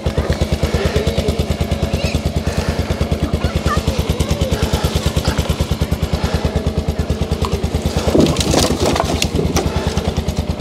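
Polaris UTV engine idling with a steady, even pulsing beat while its bed is tipped up. About eight seconds in, firewood logs slide off the back of the bed and clatter onto the ground.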